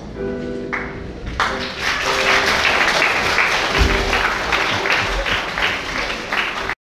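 A few held musical notes, then from about a second and a half in a large audience bursts into sustained applause over the music. The sound cuts off abruptly just before the end.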